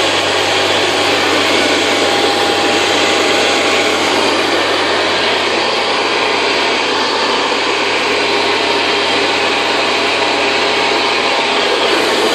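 Vintage Hoover Convertible model 719 upright vacuum cleaner running steadily, a constant rush of air with a faint steady whine. Its motor is freshly oiled and its belt new.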